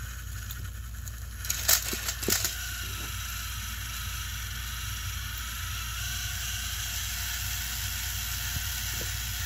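Battery-powered Thomas & Friends toy engines whirring as they push against each other on plastic track, with a few sharp clattering knocks about two seconds in as the red James engine is forced off the rails. The motors then keep running steadily.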